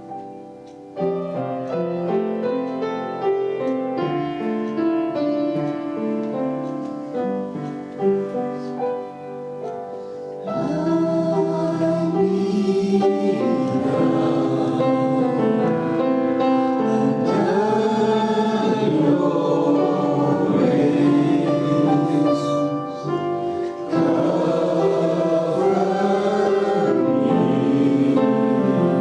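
Worship music: keyboard playing sustained chords, then about ten seconds in, voices join singing a gospel-style worship song over it and the music grows louder.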